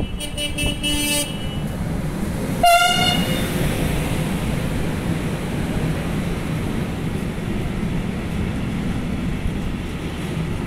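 Horn of a Siemens ES64F4 electric locomotive sounded as a driver's greeting: a toot at the start, then one short, louder blast about two and a half seconds in. After it, the steady rumble and clatter of intermodal freight wagons rolling past.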